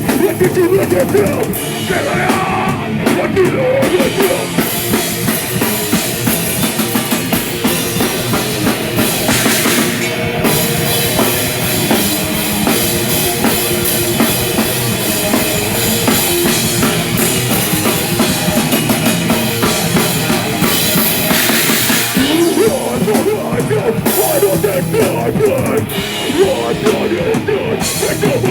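Live heavy rock band playing loud, with the drum kit and bass drum to the fore.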